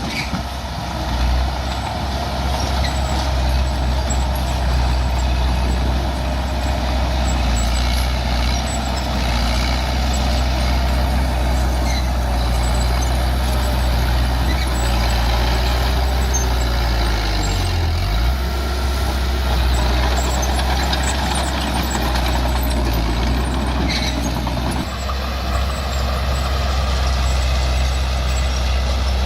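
Bulldozer's diesel engine running steadily under work, with a brief dip and recovery in engine speed about eighteen seconds in.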